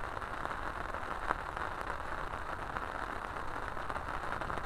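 Steady hiss of light rain falling, with scattered faint crackles.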